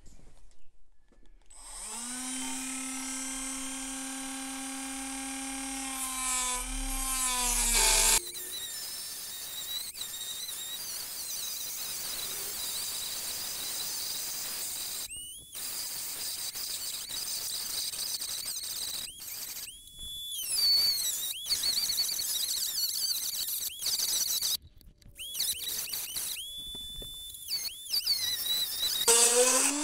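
Hand-held Dremel rotary tool with a small cutting disc cutting freehand through a sheet-metal lathe panel about 1.6 mm thick. First a steady high motor whine that drops in pitch about eight seconds in, then a rougher, hissing grind, with several short stops, each followed by the motor spinning back up.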